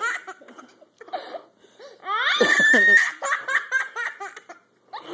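A man laughing hard in helpless bursts while being tickled by a toddler, with the toddler's higher giggles mixed in. The loudest is one long laugh about two seconds in.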